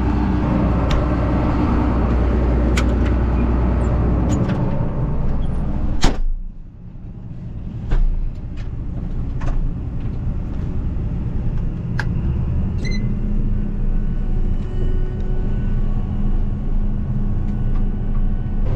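Combine harvester running as heard in the cab: a steady low hum, with scattered sharp clicks. About six seconds in, a sharp knock comes and the sound drops away briefly, then builds back up to a steady hum.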